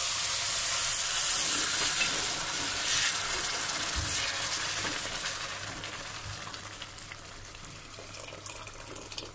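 Hot water poured slowly into a pot of rice and vermicelli frying in oil: a loud sizzling hiss as the water hits the hot fat, fading away over the last few seconds as the pot settles.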